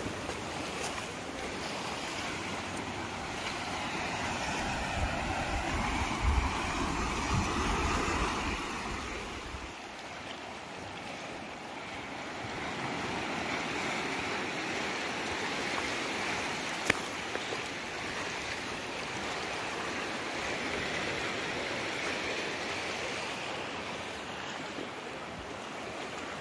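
Small waves washing in over a shallow reef and beach, their wash swelling and fading every few seconds. Wind buffets the microphone with a low rumble for about the first third, and there is a single sharp click about two-thirds of the way through.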